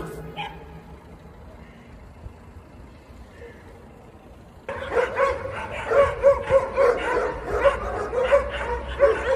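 A pack of stray dogs barking fast and repeatedly at a person, starting about halfway through, with overlapping barks and yips.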